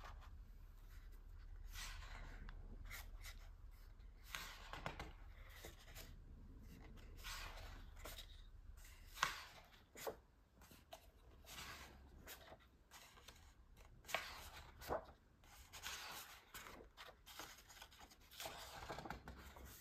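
Faint rustles and swishes of large paper booklet pages being turned by hand, with a few sharper flicks as pages fall over.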